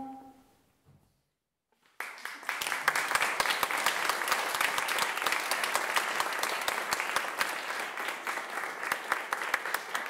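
The last held note of a bassoon piece dies away in the first moment, and after about a second and a half of near silence an audience breaks into steady applause.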